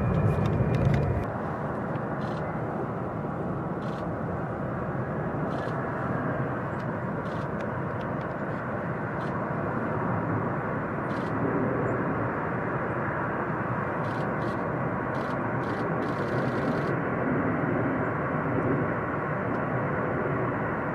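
Distant jet engine noise from an F-16 Fighting Falcon on its takeoff roll: a steady rushing sound. A louder low rumble drops away about a second in.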